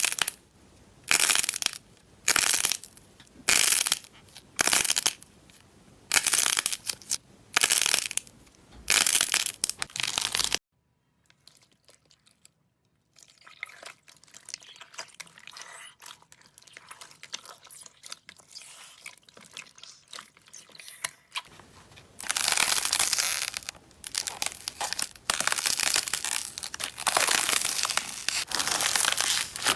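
Hands pressing and squishing slime close to the microphone, with crackling, crunching sounds. At first the presses come about once a second, each a short burst. After a brief silence there is a stretch of faint, soft crackling, then louder, denser crunching near the end.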